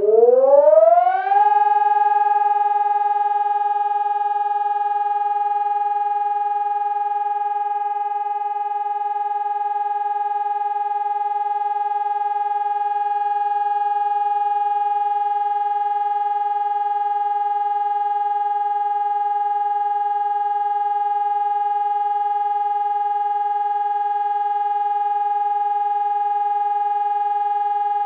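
Pavian electronic warning siren sounding the test signal. Its tone rises in pitch over about a second and a half, then holds a loud, steady continuous tone.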